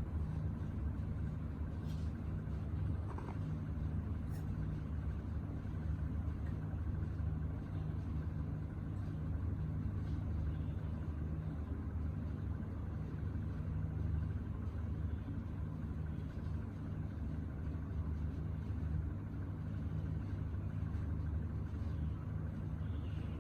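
A steady low hum, even in level throughout, with a few faint short sounds in the first few seconds.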